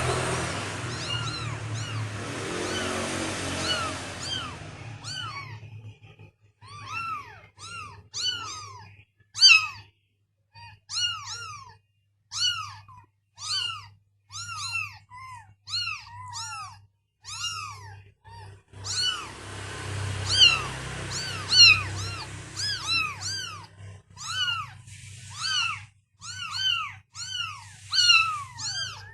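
Kittens mewing over and over in short high cries that rise and fall in pitch, at times several calls a second and overlapping, over a steady low hum.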